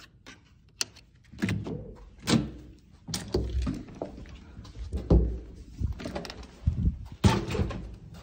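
Hotel room door with a lever handle being opened and shut: a run of irregular clunks and thuds, the loudest about five seconds in and another near the end.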